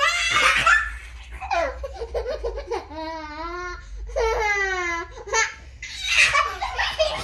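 Young child laughing in repeated bursts, with two long, wavering squeals about three and four seconds in.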